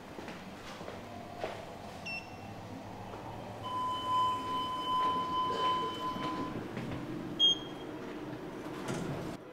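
Lift signal tones: a short chime about two seconds in, then a steady beep held for about three seconds, and a short, sharp beep near the end as a floor button in the car is pressed.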